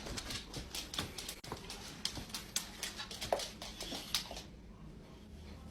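Faint, irregular clicks and taps from a dog moving about, a few to the second, dying away about four and a half seconds in.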